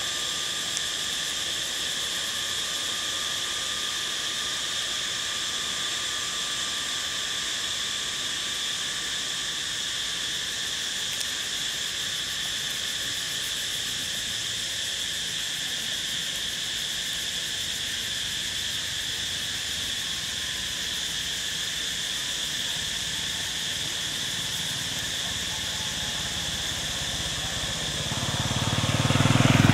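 A steady drone of insects, several high shrill tones held without a break. Near the end a motor vehicle's low rumble swells up quickly and becomes the loudest sound.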